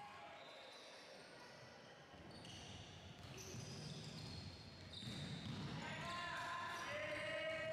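Court sounds of a youth basketball game: a basketball dribbling on the hardwood floor, short high-pitched sneaker squeaks, and players and coaches calling out, louder near the end.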